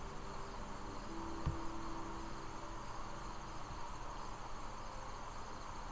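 Low, steady background hiss with faint high steady tones, a faint hum for a second or two, and a soft click about one and a half seconds in.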